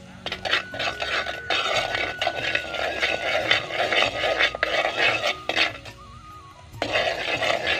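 A ladle scraping and stirring in a clay pot of bubbling frying oil: rough rasping strokes that pause for about a second near the end and then start again, over soft background music.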